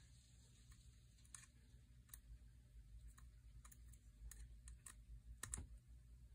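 Faint, scattered small clicks, about a dozen irregularly spaced, as a hex key works the pull-weight adjustment screw of a Timney trigger on a Remington 783.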